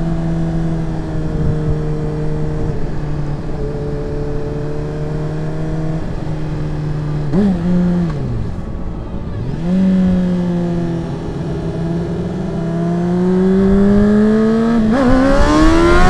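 Sport motorcycle engine heard from the rider's helmet over wind rush, cruising at steady revs. About seven seconds in the revs blip briefly and then sink as the bike slows. They pick up and climb steadily as it accelerates, with a quick rev change near the end.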